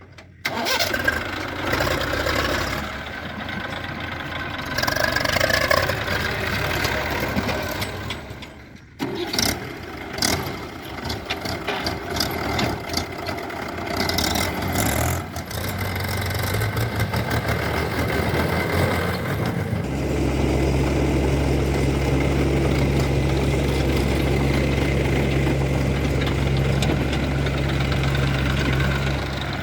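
Diesel engines of earth-moving machinery running, with scattered knocks and clanks over the first two-thirds. From about two-thirds in, one engine settles into a steady idle.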